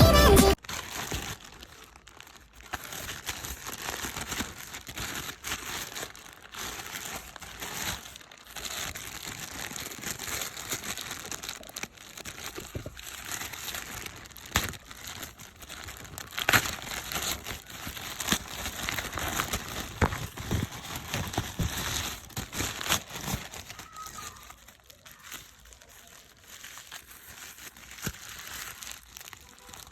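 Packaging crinkling and rustling as it is handled and opened by hand, with irregular sharp crackles.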